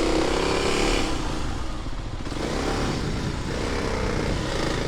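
Motorcycle running along a winding mountain road, its engine a steady rumble under an even rush of riding noise.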